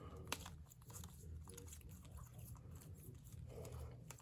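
Faint handling of trading cards: a few sharp clicks and short crisp rustles as the cards are shuffled through, over a low steady hum.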